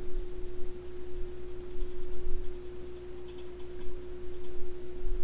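A steady hum at one unchanging pitch, with a low rumble beneath it and a few faint clicks.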